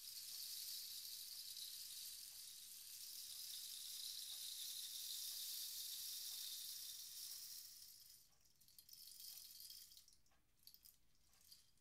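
Rain stick tilted slowly, its pellets trickling through with a soft, high hiss like gentle rain. About eight seconds in the flow runs out and thins to a few scattered ticks.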